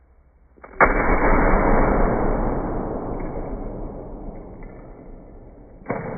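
Sledgehammer striking an old HP laptop twice: a heavy smash about a second in with a long, fading rattle of noise after it, and a second sharp hit near the end.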